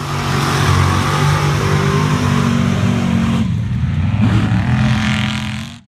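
Lifted mud-bog pickup on tractor tires, its engine revving hard as it drives through the mud pit. The sound changes abruptly about three and a half seconds in.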